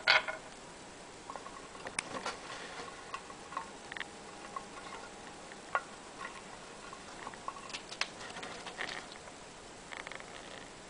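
A pet rodent clattering a nutshell: irregular light clicks and taps, a few sharper knocks among them, rattled as if begging for a mealworm.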